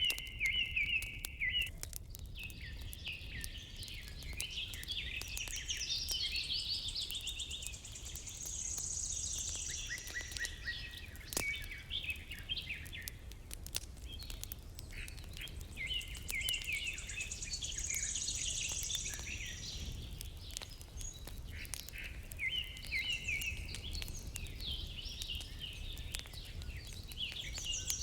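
Songbirds singing: bursts of quick chirping phrases and high trills that recur every few seconds, over a steady low background with scattered faint clicks.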